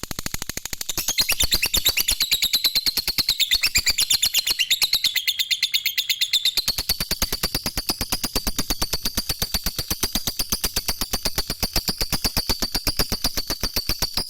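Lovebird singing its long continuous 'ngekek' trill: a rapid, unbroken string of high chattering notes, about ten a second, that stops suddenly at the end.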